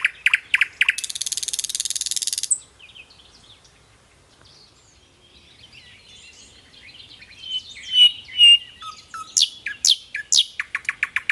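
Nightingale singing. It opens with a rapid run of notes and a dense buzzy trill, goes quiet for a few seconds, then gives varied whistled phrases with sharp downward sweeps and a fast run of repeated notes near the end.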